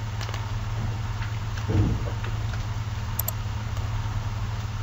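Steady low electrical hum with hiss, the background noise of a desk microphone, and a brief faint low sound just under two seconds in.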